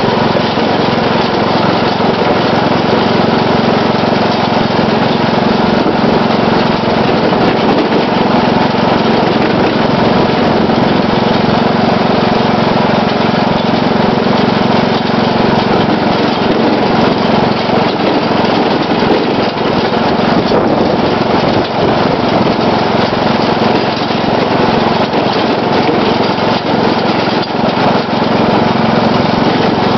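The 12.5 hp Briggs & Stratton engine of a riding lawn mower running steadily as the mower is driven along.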